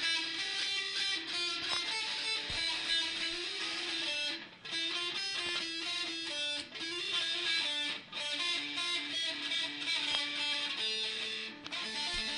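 Electric guitar playing a fast tapped run of repeating notes on one string, with open-string notes in between, in phrases broken by brief gaps.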